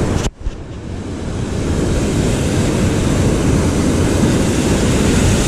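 Rough surf on rocks and wind buffeting the microphone, a loud, even rushing noise. The sound cuts out sharply for an instant just after the start, then builds back up and holds steady.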